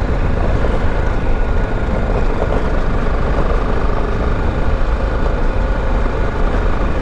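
BMW G310GS single-cylinder motorcycle engine running steadily while riding over a rough, stony gravel track, mixed with tyre and wind noise.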